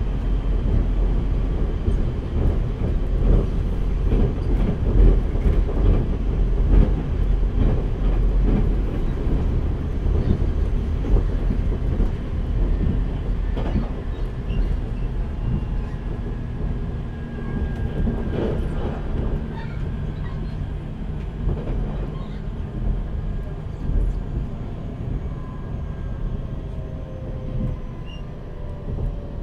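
Running sound inside a JR Central 383 series electric limited-express motor car: a steady heavy rumble of wheels on rail with many short clicks and knocks, and the whine of its Toshiba GTO inverter and traction motors. Thin tones fall slowly in pitch over the second half.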